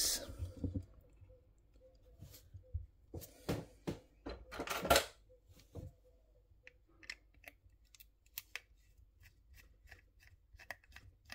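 Small screwdriver unscrewing the screws that hold a 1:64 diecast model to its plastic display base, with handling clicks and scrapes. A few louder knocks and scrapes come around the middle, then a run of faint quick ticks as the screws are turned.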